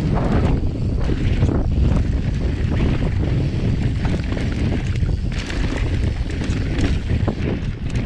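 Wind buffeting the microphone as a mountain bike descends a dry, rocky dirt trail, a steady low rumble. The bike's tyres and frame clatter over the rough ground, with scattered sharp clicks and rattles.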